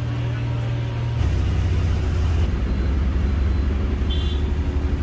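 City bus engine running, heard from inside the bus as a steady low hum with a fast low pulse. A short high-pitched tone comes about four seconds in.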